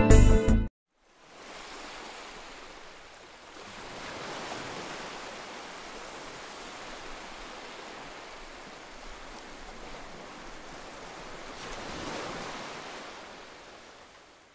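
Background music cuts off under a second in. After a short gap, a steady outdoor rushing noise follows, swelling about four seconds in and again near the end.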